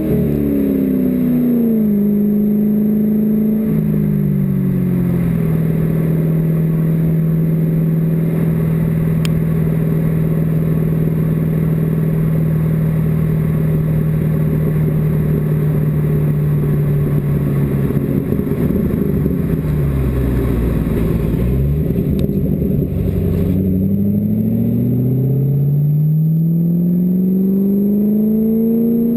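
An engine running: its pitch falls over the first few seconds, holds steady for a long stretch, dips low about twenty seconds in, then climbs again toward the end.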